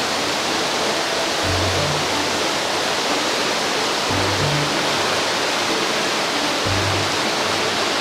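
Steady rushing of a mountain stream's water over rocks, a loud even hiss. Soft background music plays over it, with a low bass note about every two and a half seconds.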